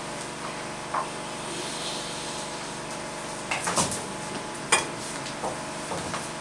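A few scattered light knocks and clicks, as of objects being handled and set down, over a steady background hum.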